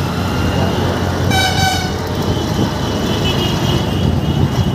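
Auto-rickshaw's small engine running steadily with road noise as it drives, and a short vehicle horn toot of about half a second roughly a second and a half in.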